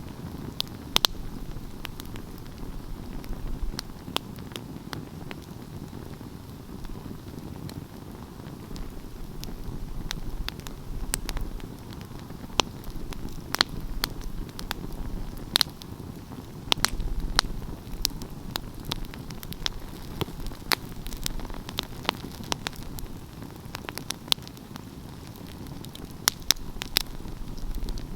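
Wood fire crackling, with frequent sharp, irregular pops over a steady low rumble of the burning.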